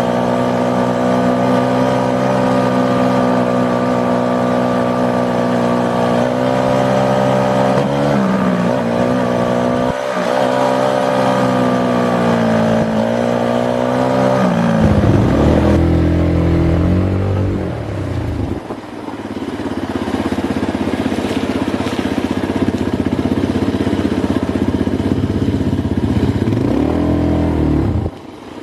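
ATV engine running under throttle, its pitch holding steady and then dipping and rising several times as the throttle changes. About halfway it drops low and revs back up, then carries on as a rougher, noisier running with rattling.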